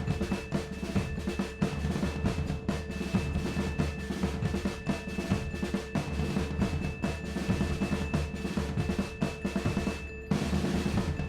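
Upbeat background music driven by drums and percussion, with a brief break about ten seconds in.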